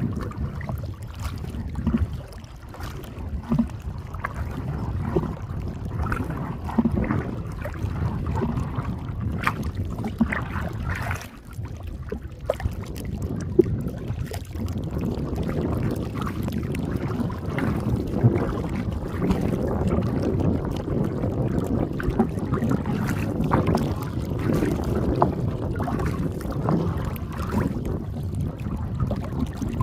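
Wind rumbling on the microphone over water sloshing around a small boat or a person in the lake, with scattered light knocks and splashes.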